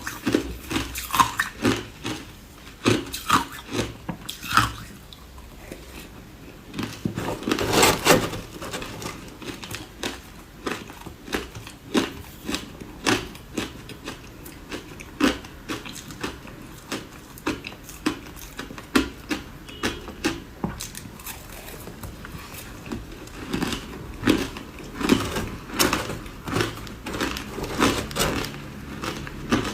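A person biting and chewing ice close to the microphone: a steady run of crisp crunches, several a second, with a louder burst of crunching about eight seconds in.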